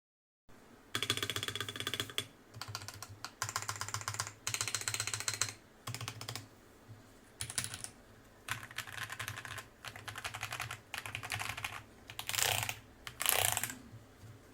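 Typing on a custom tenkeyless mechanical keyboard with TTC long-pole tactile switches and mixed PC and ABS keycaps: bursts of rapid key clacks a second or two long with short pauses between, and two louder, shorter bursts near the end.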